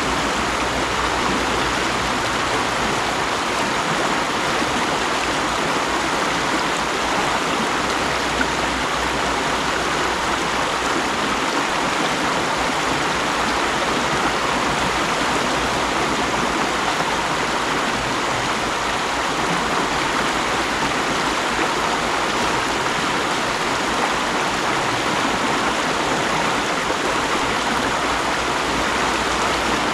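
Mountain stream rushing steadily over rocks, an even, unbroken water noise.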